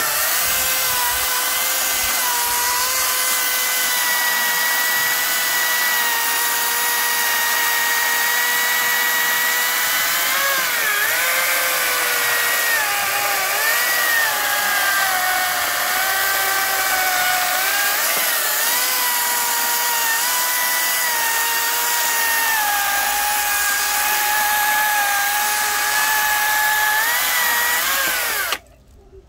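Cordless electric chainsaw cutting crosswise through a log. Its whine is steady, then sags in pitch and recovers several times as the chain bites, and it cuts off suddenly near the end.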